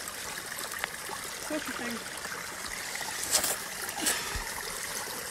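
Spring water trickling steadily at a holy well, with a couple of brief rustles about three and four seconds in.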